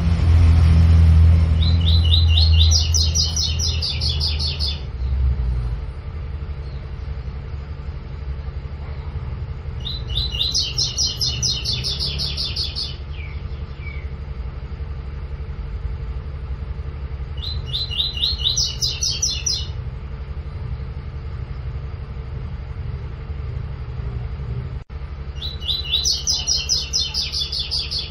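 Double-collared seedeater (coleiro) singing its 'tui-tui' type song: four phrases of rapid, repeated high notes, about eight seconds apart. A steady low rumble runs underneath, loudest in the first few seconds.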